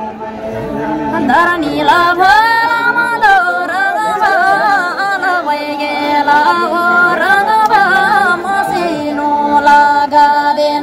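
A voice singing a folk tune. It holds a steady note at first, then from about a second in moves through a melody that slides and wavers between notes, and settles onto held notes again near the end.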